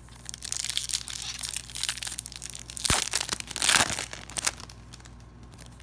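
Foil wrapper of a trading-card sticker pack crinkling and tearing as it is opened by hand: a dense crackle, loudest about three to four seconds in, with one sharp crack near three seconds.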